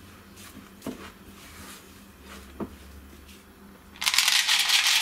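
Spatula stirring a crumbly coconut-flour and cacao mixture in a glass bowl, soft scraping with a couple of light knocks on the bowl. About four seconds in, dark chocolate chips are poured from a measuring cup into the glass bowl, a loud dense rattle of many small pattering clicks.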